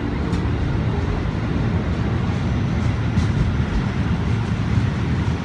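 JR 205 series electric commuter train pulling away along the platform as its rear car goes by: a steady low rumble of wheels and running gear on the rails, with a few faint ticks.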